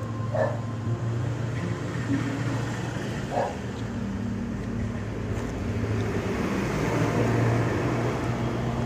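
Steady low hum of a motor vehicle engine running, with road traffic noise swelling about seven seconds in. Two short squeaks come about half a second and three and a half seconds in.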